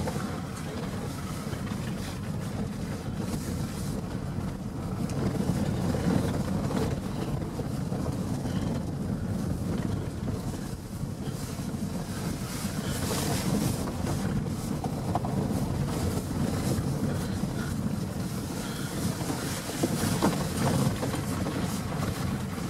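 Steady low rumble of a car's engine and tyres on a rough, snow-covered mountain track, heard from inside the cabin.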